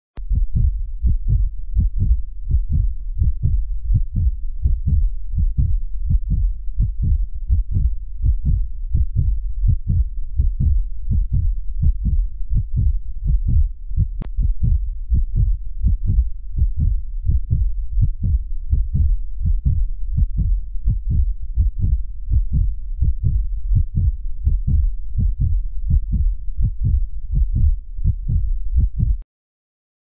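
Heartbeat sound: a steady, even rhythm of low beats, which cuts off suddenly about a second before the end.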